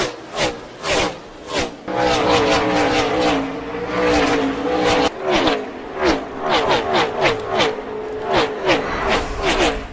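Pack of NASCAR Gen 6 stock cars with V8 engines racing past at speed, one after another, each engine note dropping in pitch as it goes by. From about two seconds in, one car's engine holds a steady, slightly rising note for about three seconds, then cuts off suddenly and the string of passing cars resumes.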